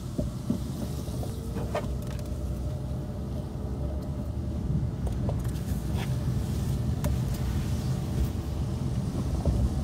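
Car driving along a wet street: a steady low rumble of engine and road noise, with a few faint clicks and knocks.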